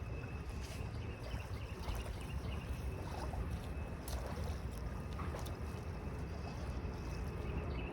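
Outdoor riverbank ambience: a steady low wind rumble on the microphone over a haze of river and background noise, with a thin, steady high-pitched hum and a few faint chirps.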